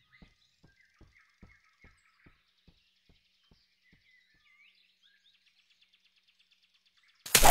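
Faint birds chirping in a cartoon forest soundtrack, over a row of soft, evenly spaced taps, about two or three a second, that die away after a few seconds. Right at the end comes a sudden loud burst.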